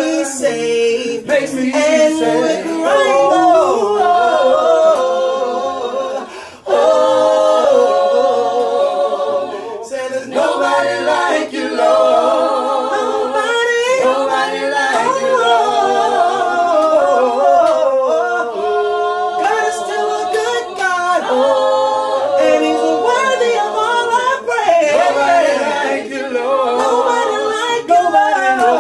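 A group of voices singing gospel a cappella, with long held notes and runs that bend in pitch, and no clear words. The singing breaks off briefly about a quarter of the way in.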